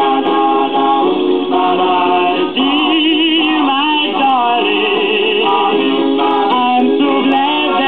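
A 78 rpm vocal-group record playing on a 1947 Sears Silvertone 7070 radio-phonograph, heard through its rebuilt crystal cartridge and the set's own tube amplifier and speaker: group singing in harmony with vibrato on held notes, thin, with little bass.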